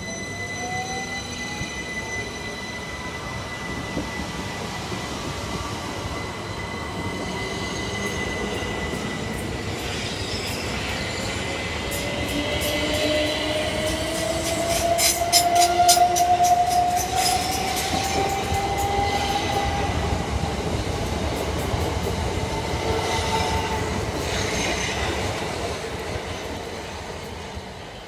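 Southern Class 377 Electrostar electric multiple unit pulling out, its traction motors whining in a slowly rising pitch as it gathers speed. About halfway through, a quick run of wheel clicks over the rail joints is the loudest moment. The sound fades near the end.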